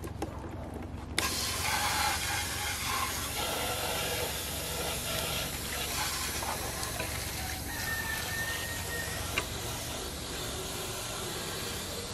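Garden hose spray nozzle switched on about a second in, water hissing steadily as it sprays onto a plastic toy truck.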